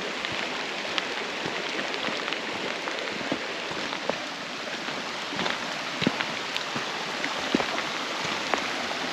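Steady rain falling through the forest, a dense hiss with individual drops ticking sharply here and there.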